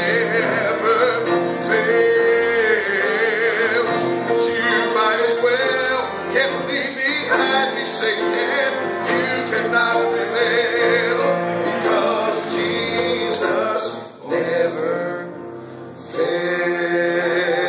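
A man singing a slow gospel song with a wide vibrato, accompanying himself on piano. The music softens briefly near the end.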